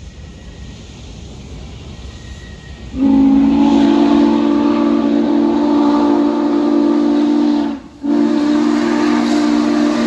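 Norfolk & Western J-class 611 steam locomotive's whistle blowing a chord of several notes at once. A long blast starts about three seconds in and stops briefly just before the eight-second mark, then a second blast follows. Before the whistle, a low rumble and hiss of the approaching locomotive.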